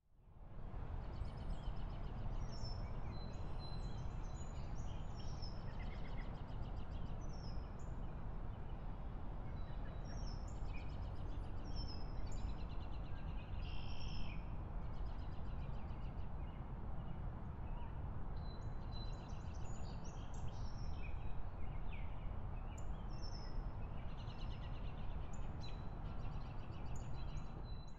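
Several songbirds chirping and singing in short calls over a steady low outdoor rumble. The sound fades in over the first second.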